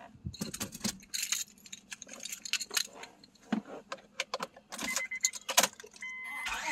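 A set of keys jangling and clinking in the hand in many quick, irregular clicks. Near the end, a high electronic chime starts beeping in short repeats.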